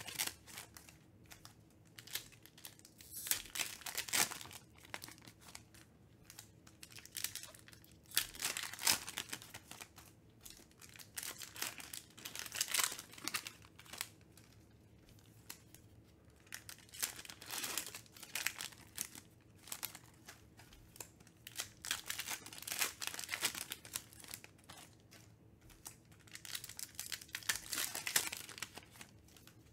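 Foil wrappers of 2020-21 Donruss Optic basketball card packs crinkling and tearing as they are ripped open by hand, in irregular bursts of rustling.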